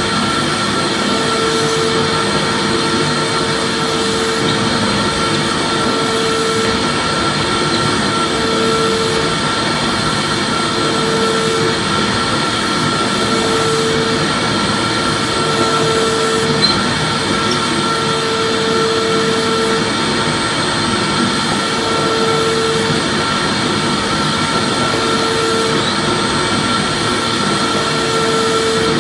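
Vacuum cleaner motor running steadily, a loud even whoosh with a constant whine on top, and a low hum that comes and goes about every two seconds.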